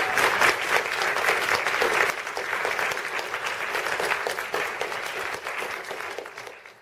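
Audience applauding, a dense patter of many hands clapping that fades out gradually toward the end.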